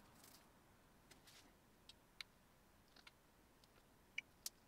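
Near silence: quiet room tone with a few faint, sharp clicks and ticks scattered through it, the two loudest close together near the end.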